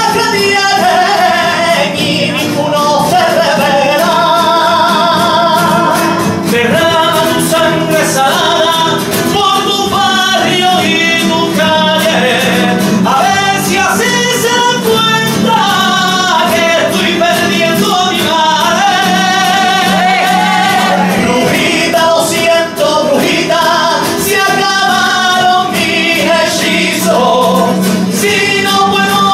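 Men singing a song live to strummed acoustic guitars, a lead voice with a second voice joining in.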